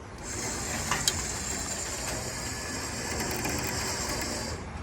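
Winch running, a steady geared ratcheting drone as it pulls a non-running truck onto a trailer; it starts just after the beginning and cuts off near the end, with a sharp click about a second in.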